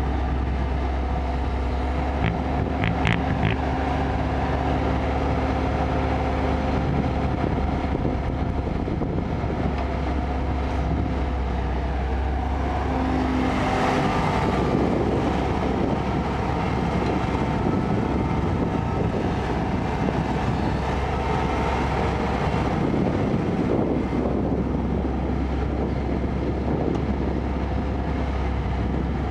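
Kobelco excavator's diesel engine running steadily under working load, with a deep continuous drone. About halfway through it turns rougher and noisier.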